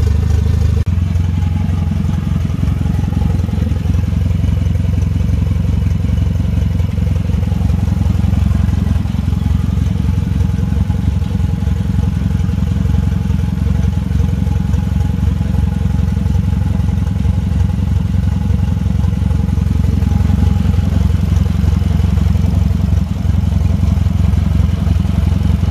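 Renault F4RT 2.0 turbo four-cylinder engine idling steadily with no exhaust fitted, so it sounds raw and open. It is running on its first warm-up after the swap, on an unmapped Twingo GT ECU.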